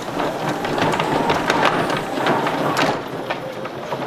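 Pressure washer's auto-retracting hose reel winding in a long hose: the hose drags and scrapes along the ground with a continuous clatter of clicks and knocks as it is pulled onto the reel.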